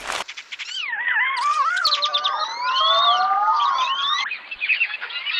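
Make Noise Morphagene tape and microsound Eurorack module playing back manipulated sound: several overlapping tones gliding up and down in pitch, some sweeping slowly and others in quick short chirps, with a brief dip about four and a half seconds in.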